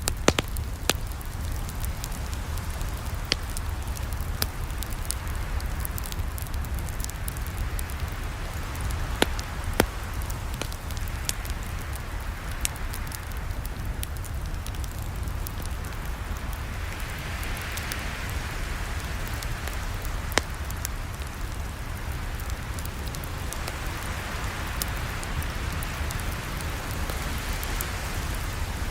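Campfire crackling: a steady hiss and low rumble with scattered sharp pops and snaps, a few of them louder.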